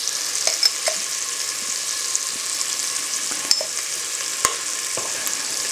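Diced pork belly bacon and onions sizzling steadily in hot fat in a pot, a high frying hiss with a few sharp clicks and pops scattered through it.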